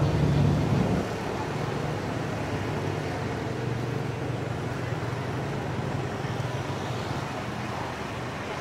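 Steady hum of road traffic with engine noise, louder during the first second.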